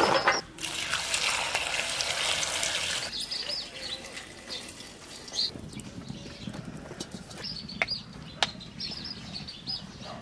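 Chopped bottle gourd pieces tumbling into an aluminium pot, followed by about two and a half seconds of steady rushing noise. Birds chirp in the background for the rest of the time, with a couple of sharp knocks near the end.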